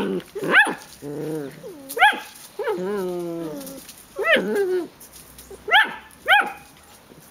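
Welsh Terrier puppies yapping, about five short high yaps, with two longer, lower, wavering calls in between.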